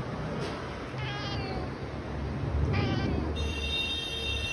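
Cat meowing: two short meows, then a longer, steady one near the end.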